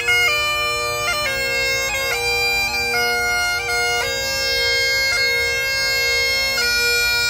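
Great Highland bagpipe playing a slow pibroch lament. Long held chanter notes over the steady drones change pitch every second or so, each change marked by quick grace notes.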